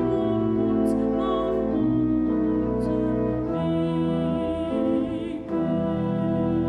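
Pipe organ playing a German hymn in held chords, with a solo voice singing over it with vibrato.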